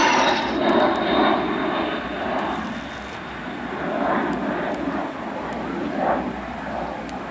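FAdeA IA-63 Pampa III jet trainer's Honeywell TFE731 turbofan passing: a high whine falls in pitch in the first second. The jet rumble then fades as the aircraft flies away.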